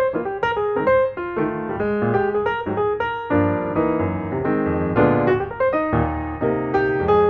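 Background piano music: quick successions of struck notes and chords.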